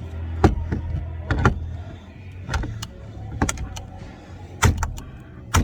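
A string of sharp clicks and knocks, about eight in a few seconds, as parts are handled and fitted inside a pickup truck's cab, over a low steady hum.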